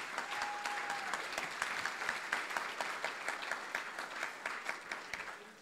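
Audience applauding, many hands clapping in a dense patter that thins out and fades near the end.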